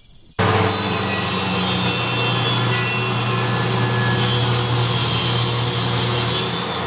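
Table saw running and cutting a small wooden board fed along its fence, starting suddenly about half a second in: a steady motor hum under the noise of the blade in the wood.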